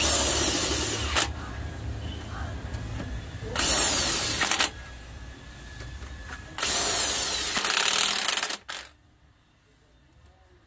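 A power tool run in three bursts, each one to two seconds long, over a low steady hum that stops near the end.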